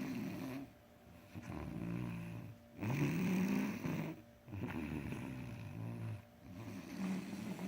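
A boy snoring in his sleep: a run of rough, low-pitched snores, each about a second long, with short breaks between breaths.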